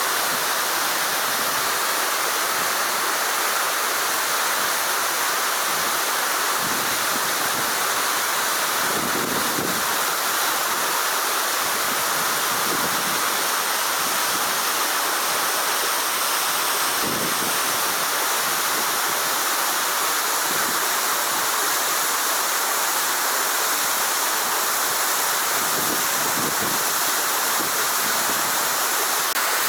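Waterfall splashing steadily, an unbroken rush of falling water.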